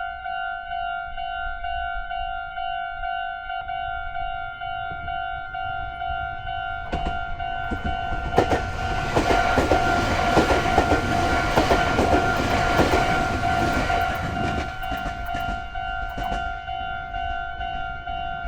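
Japanese level-crossing warning bell ringing its steady, repeating 'kan-kan' tone. From about seven seconds in to about sixteen seconds a train passes over the crossing, its wheels clattering over the rail joints, then fades away while the bell keeps ringing.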